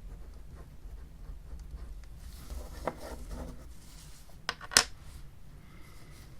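Small plastic clicks from a mechanical pencil being handled: a softer click about three seconds in, then two sharp clicks close together past the middle, the second the loudest.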